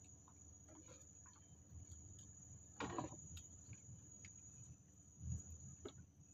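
Faint, steady high-pitched insect drone. A brief sharper knock or rustle comes about three seconds in, with a few faint clicks later.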